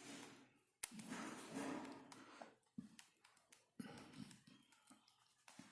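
Faint plastic clicks and light rustling from the layers of a 5x5x5 Ultramorphix puzzle being turned by hand, near silence between a few sharp clicks.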